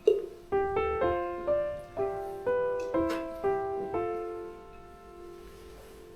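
Background piano music: a short melody of single notes, about two a second, ending on a held note that fades away.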